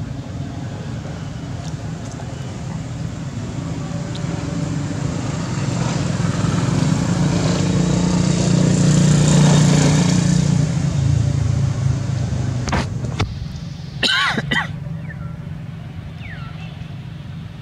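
A motor vehicle passes: its engine hum builds to a peak about nine seconds in, then fades away. About fourteen seconds in comes a brief high call with a wavering pitch.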